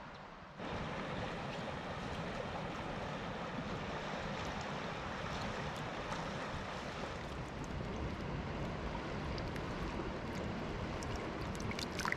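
Steady rushing of river water, with a few faint clicks near the end.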